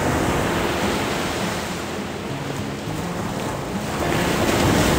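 Baltic Sea waves breaking and washing up the beach, heard close up at the waterline. The surf gets louder near the end as a wave crashes right over the spot.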